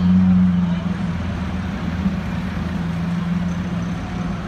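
Car engine idling steadily amid street traffic noise, its low hum shifting slightly in pitch a couple of times.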